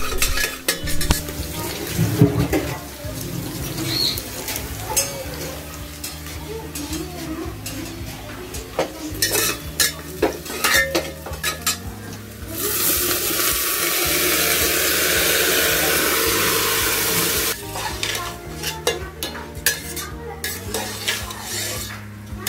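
A long metal ladle stirring and scraping in a steel pressure cooker of onions, spices and cashews frying in ghee, with repeated clinks against the pot. About thirteen seconds in, a loud steady sizzle rises for about five seconds, then the clinking stirring goes on, now through rice.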